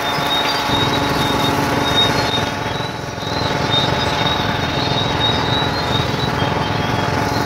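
Water tanker truck's engine idling steadily, with a thin high chirping coming and going above it.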